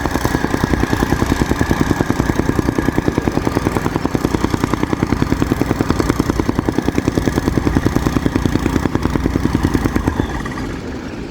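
Soil compactor running with a fast, even pounding of about ten strokes a second over its small engine. About ten seconds in the pounding fades and the sound drops in level.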